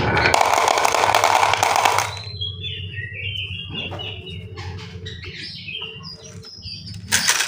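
Small birds chirping in short repeated high calls, after about two seconds of loud rattling clatter at the start; another loud burst comes just before the end.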